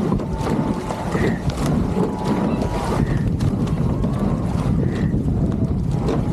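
Wind buffeting the microphone over water rushing past a racing rowing shell under way, with scattered knocks from the boat and a soft sound recurring about every two seconds.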